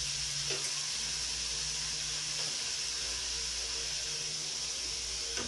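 Chicken pieces sizzling in a frying pan: a steady hiss of frying.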